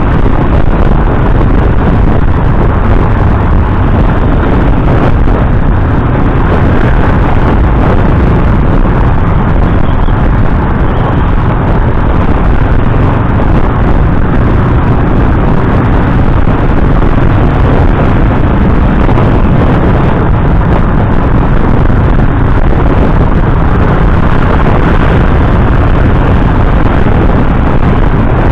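Loud, steady riding noise from a motorcycle under way: the engine and the rush of wind over the bike-mounted microphone, with no breaks or changes.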